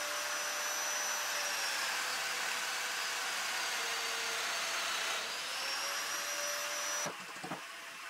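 Festool Domino joiner running with a dust extractor attached. The motor's whine sags in pitch for a few seconds as the cutter plunges into the hardwood to cut a mortise, then recovers as it is withdrawn. About seven seconds in it gives way to a quieter steady whir with a couple of short knocks.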